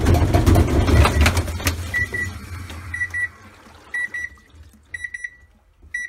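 Panasonic NA-158VT top-loading washing machine in its spin cycle, a loud low rumble with rapid knocking as the shaking tub strikes the cabinet wall. The owner suspects the suspension dampers are at fault. About two seconds in the rumble dies away and the washer's beeper sounds a quick run of short beeps about once a second.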